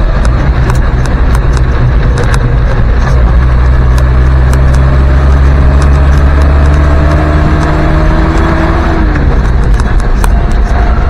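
Land Rover Series 2a ambulance driving, heard loud from inside the cab: a steady engine drone with clicking rattles. A whine climbs slowly and drops away about nine seconds in.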